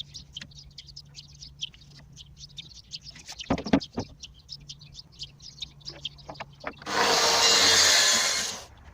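A power tool runs in one short burst of under two seconds near the end, the loudest thing here, then stops. Before it there are a few knocks of wood or tools, and birds chirp throughout.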